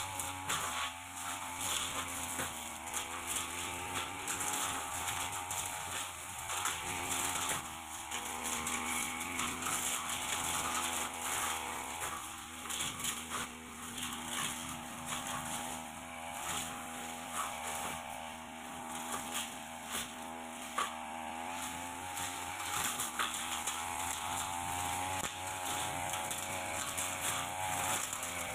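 Backpack brush cutter's small engine running steadily as it cuts through light undergrowth, its pitch wavering slightly under load.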